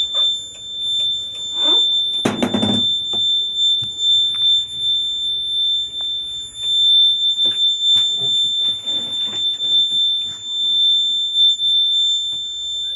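A continuous high-pitched electronic tone, held steady like an alarm buzzer, with a few short knocks and a louder brief noise about two seconds in.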